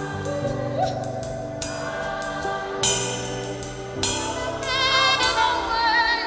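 Gospel worship music between sung lines: held chords and bass under cymbal crashes about every second and a bit, with voices holding a wavering note in the last couple of seconds.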